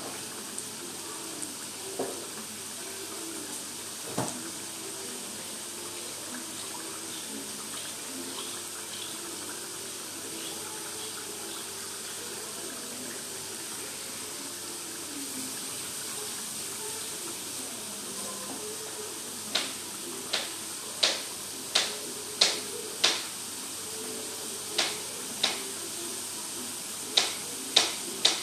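Chopped aromatics frying in oil in a steel wok, a steady sizzle. About two-thirds of the way in, a run of sharp taps starts, roughly one every half-second to second.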